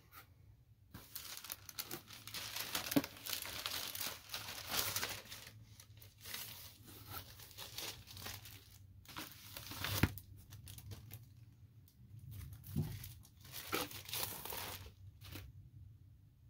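A vinyl record's white inner sleeve rustling and crinkling in stop-start stretches as the pink LP is slid out of it and handled, with a few sharp taps, the loudest about ten seconds in.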